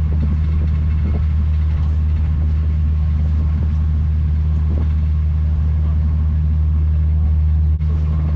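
Tour boat's engines running with a steady low drone, broken by a brief dip near the end.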